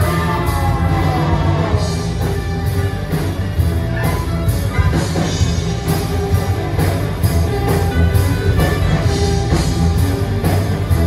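A live heavy metal band playing loudly: distorted electric guitars, bass and a drum kit, heard from the audience seats in a hall.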